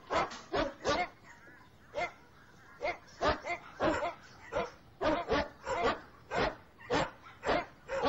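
A dog barking over and over in short, sharp barks. There is a brief lull about a second in, then an even run of about two to three barks a second.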